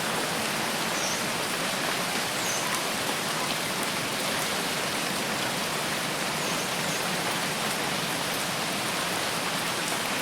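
Steady rainfall: an even, continuous hiss with faint ticks of single drops.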